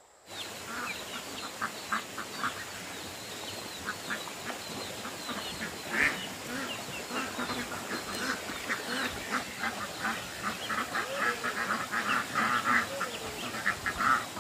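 Ducks quacking, many short calls overlapping, growing busier in the last few seconds.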